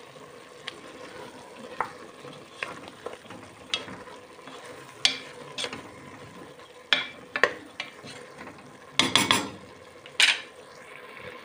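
Chicken pieces with chopped onion and chickpeas being stirred in oil in a cooking pot over frying sizzle, the spoon knocking and scraping against the pot now and then, hardest about nine and ten seconds in.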